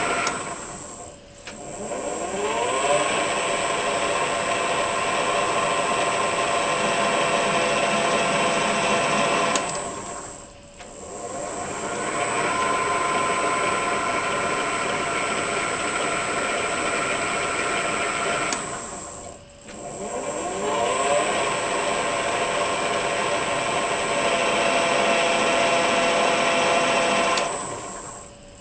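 Metal lathe driven by a variable-frequency drive, single-point threading with the half nut left engaged: the motor runs steadily with a high whine, winds down and reverses about every nine seconds, its pitch climbing back up after each reversal as the tool runs back and forth along the thread.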